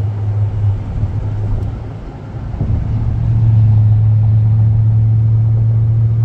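Car cabin noise while driving on a highway: a steady low drone of engine and tyres that grows louder about three seconds in and then holds.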